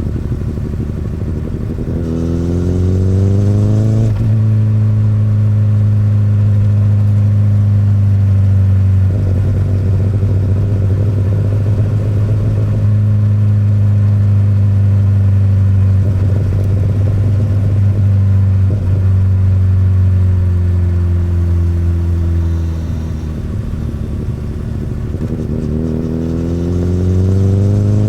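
Akrapovic-exhausted 2008 Honda CBR1000RR inline-four motorcycle engine under way: it accelerates, its pitch rising, then shifts up with a sudden drop in revs about four seconds in. It then runs at a steady, slowly falling pitch, eases off a little over twenty seconds in, and accelerates again near the end.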